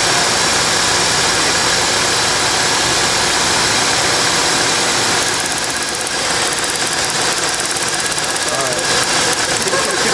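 An engine running steadily at idle, its sound changing slightly about five or six seconds in to a faster, finer pulsing.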